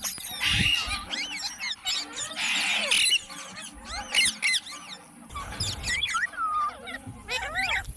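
Green parrot calling in many short chirps and whistles that rise and fall quickly, with a harsher screech about two to three seconds in.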